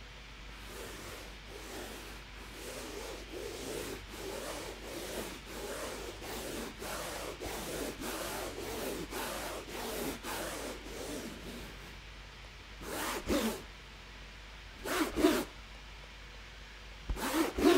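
Fingers rubbing and scratching across the fabric-covered hard shell of a microphone case: a fast, scratchy rasp for about twelve seconds, then three short, louder strokes near the end.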